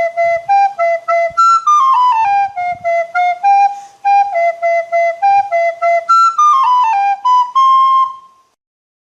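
Flute playing a quick melody of short, separately tongued notes, with two falling runs, ending on a held note that stops about eight and a half seconds in.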